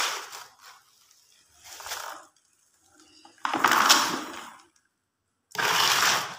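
Plastic dustpan scraping hay and rabbit droppings across a concrete floor: a few rough scraping strokes about two seconds apart, with the hay rustling.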